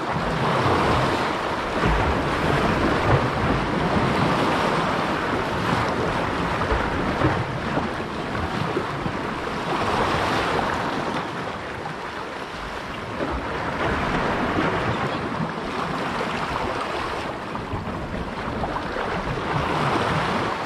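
Sea waves washing against the shore, with wind buffeting the microphone. The noise swells and eases every few seconds.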